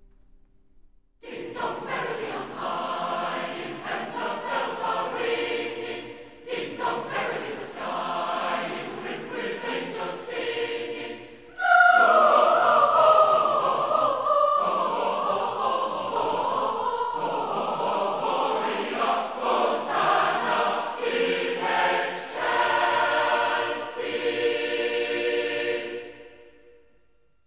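A choir singing, starting about a second in, growing louder about twelve seconds in, then fading out at the end.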